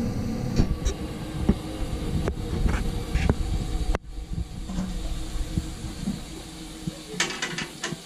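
Amana 97% condensing gas furnace running with a steady hiss and low rumble, while wires and meter leads are handled inside the open cabinet, giving scattered small clicks and rattles. The low rumble falls away about seven seconds in, with a short cluster of clicks.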